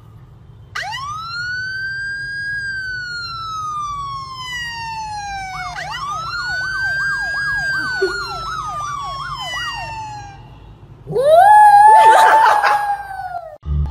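Emergency siren wailing in long rising and falling sweeps, with a fast warbling yelp over the second sweep. Near the end a small white dog howls along, a rising then held howl that is the loudest sound.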